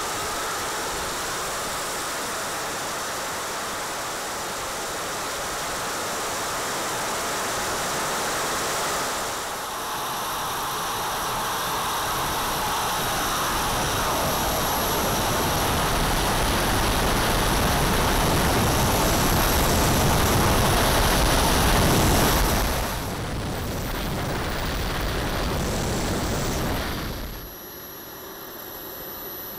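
The four small gas-turbine jet engines of a giant 1/5-scale RC Avro Vulcan run steadily with a high turbine whine, heard close up from cameras mounted on the model as it rolls on the tarmac. The level drops abruptly a couple of times, the last drop near the end.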